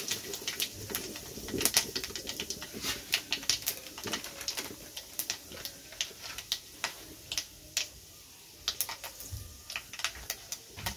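Panch phoron seeds crackling and spluttering in hot oil in a kadhai, with many sharp, irregular pops that thin out for a moment a little before the end.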